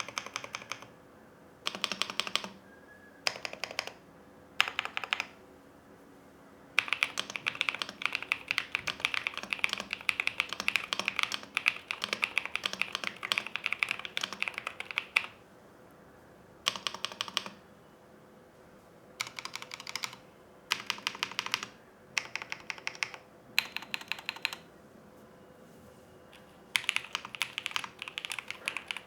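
Typing on a Menel Nia 87 TKL gasket-mount mechanical keyboard, fast rattling keystrokes. Several short bursts of under a second each come first, then a long run of steady fast typing from about seven to fifteen seconds in, then more short bursts, and continuous fast typing again near the end.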